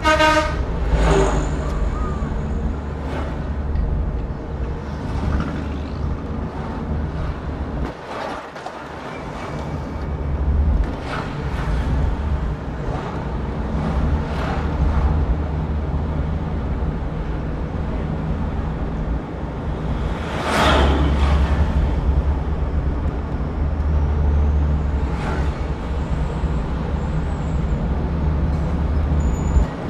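Steady low road and engine rumble heard inside a moving car, with other vehicles rushing past now and then, the loudest pass about twenty seconds in.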